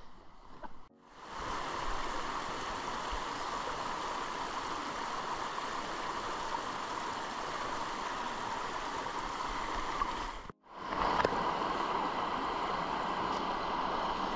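Small stream running over rocks with a steady rushing trickle. It starts suddenly about a second in and breaks off briefly a little past ten seconds in.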